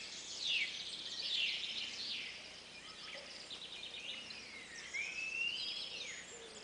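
Several birds calling and singing at once, a busy chorus of overlapping whistles and chirps, many sweeping down in pitch and one long rising whistle about five seconds in.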